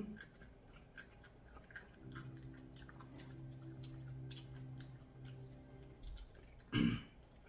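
King crab leg shells being picked apart and the meat chewed: scattered small clicks and crackles. A steady low hum holds for about three seconds in the middle, and a short, louder thump comes near the end.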